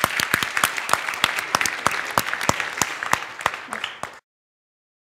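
Audience applauding: many hands clapping densely, tapering a little, then cut off suddenly about four seconds in.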